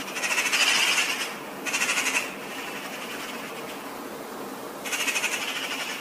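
Eurasian jay giving three harsh calls: a long one at the start, a short one about two seconds in, and another near the end.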